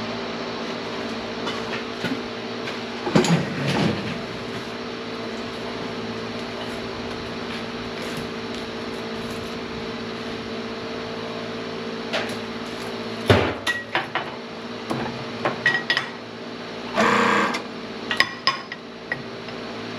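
Old hydraulic press breaking scrap transformers: a steady machine hum under a string of metal clanks and knocks. The loudest knock comes about two-thirds of the way in, followed by a short rattling burst and a few lighter clinks.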